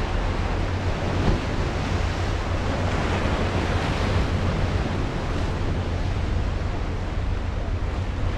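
Ocean surf breaking and washing over rocks, a steady wash that swells a little about three seconds in, with wind rumbling low on the microphone.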